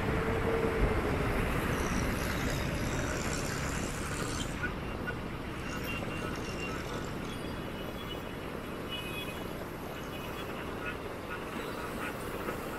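Steady traffic noise from a busy multi-lane city avenue: a low rumble of passing vehicles, with a held tone that fades out in the first second or two, growing slightly quieter after about four seconds.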